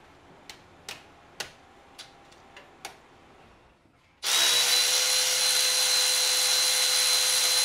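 A few light sharp clicks about half a second apart, then a cordless power tool starts suddenly and runs steadily with a high whine, driving a fastener in the rocker area of a 5.7 Hemi's cylinder head.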